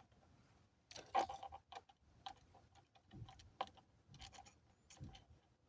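Scattered faint clicks and taps of small laptop parts being handled: plastic casing pieces and tiny screws knocking against each other and the case.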